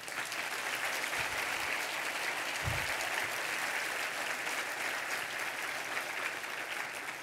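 Audience applauding: steady clapping that eases off near the end.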